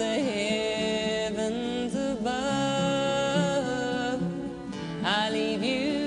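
A woman singing a slow country ballad over soft instrumental backing, holding long notes with vibrato. She sings two phrases with a short break about four seconds in.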